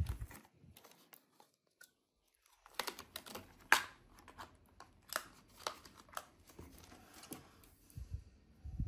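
Rigid clear plastic packaging of a phone case being handled and opened: a run of sharp clicks and crackles of plastic, with a short pause about two seconds in and a couple of low thuds near the end.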